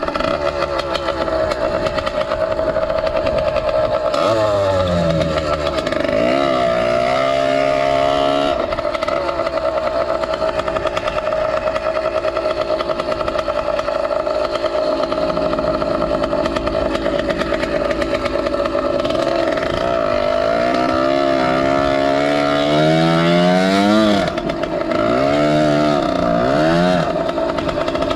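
Small two-stroke motorized-bicycle engine (Zeda80 kit) running continuously, its pitch rising and falling several times as the throttle is opened and eased off.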